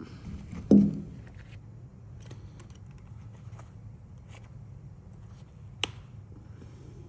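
Hand tools clicking and scraping against one of the small 1.5-volt cells from inside a 9-volt battery as it is pried open, with a heavy thump about a second in and a sharp click near the end.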